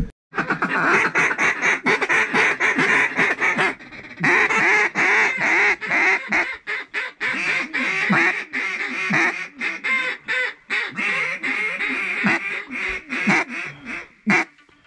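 Mallard duck call blown hard: a long, loud run of rapid quacks and chatter, broken by a short pause about four seconds in.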